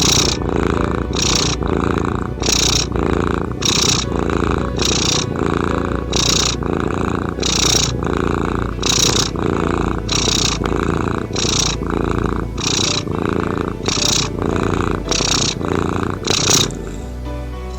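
Domestic cat purring close to the microphone, loud and steady, rising and falling with its breathing about every 1.3 seconds. The purring stops near the end, where soft music tones begin.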